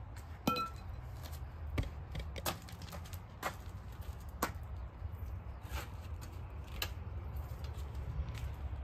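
Lug wrench clinking and knocking on a car wheel's lug nuts as someone struggles to loosen them: about seven sharp, irregular clicks over a low steady rumble.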